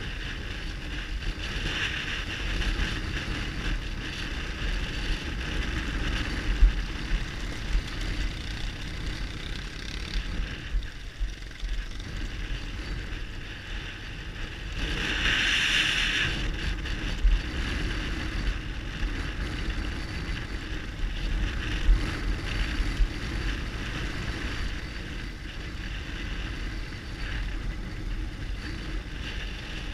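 BMW R1200GS Adventure's boxer-twin engine running at a steady riding pace on a gravel track, under wind rushing over the helmet-mounted microphone. A few short knocks come through, and about halfway in there is a louder rush lasting a second or two.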